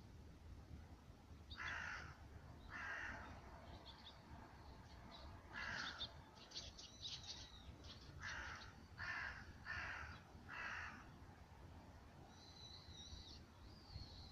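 Crows cawing in the distance, about seven separate caws, with smaller birds chirping in high trills in between and near the end.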